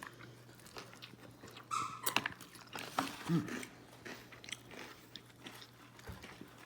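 A person biting into and chewing a Big Mac with sauce close to the microphone: wet clicks and crunches of the mouth. A short high-pitched whine about two seconds in.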